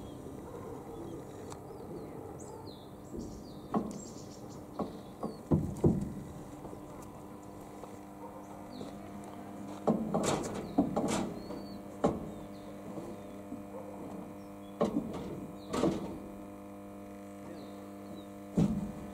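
Scattered metallic knocks and clanks from repair work inside a combine harvester, heaviest about halfway through, over a steady hum.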